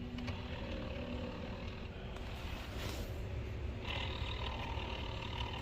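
Clicking and snapping from behind the dash of a 2019 Ford Ranger as the temperature is switched between hot and cold: the blend door and its damper motor in a defective early-build HVAC box, over a steady rumble of the running truck and blower. A steady whine joins about four seconds in.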